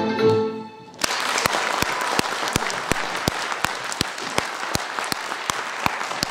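A women's folk vocal group's singing ends in the first second; after a brief lull, an audience breaks into applause about a second in. One clapper's louder claps stand out from the rest in an even beat, nearly three a second.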